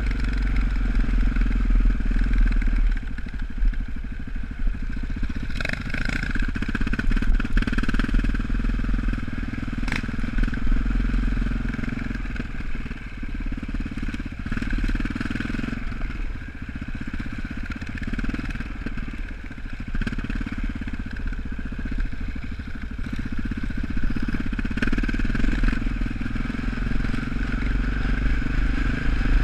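Single-cylinder KTM supermoto engine running at varying throttle, heard from the rider's helmet, easing off for a few seconds about halfway and pulling again. A few short knocks come from the bike over the rough ground.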